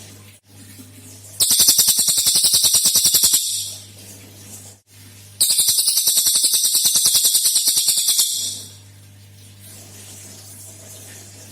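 Cililin songbird giving its fast 'tembakan' burst song: two rapid runs of high, evenly repeated notes, the first about two seconds long and the second about three, with a steady low hum underneath.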